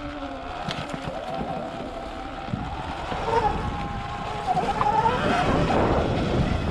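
Electric dirt bike's motor whine wavering up and down in pitch as it speeds up and slows on a trail, under heavy wind rumble on the microphone. It gets louder about halfway through.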